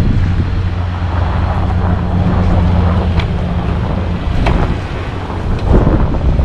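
Snow-plowing vehicle's engine running steadily with a low hum, under wind noise on the microphone, with a few sharp knocks in the middle and a louder noisy stretch near the end.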